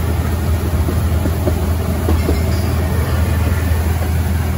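Open-sided tour vehicle driving along with a steady low engine rumble and the rattle of its ride.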